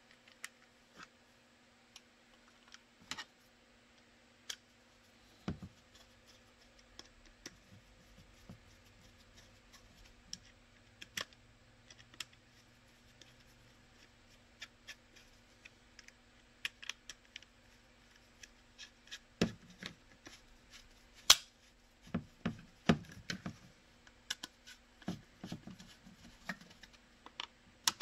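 Hand screwdriver and hard plastic parts clicking and knocking as screws are driven to fasten a thermoformed AR-15 magazine holder to a black plastic mounting plate. The clicks are sparse at first and come thicker in the second half, over a faint steady hum.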